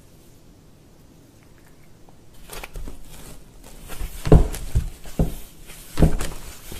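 A cat squeezing through a round hole cut in a cardboard panel: scraping and rustling against the board from about two seconds in, then several dull knocks as its body bumps the panel.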